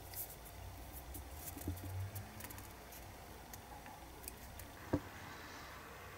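Faint handling sounds of a diecast toy car and a plastic tool being worked by hand: light clicks, taps and scrapes, with one sharper click about five seconds in.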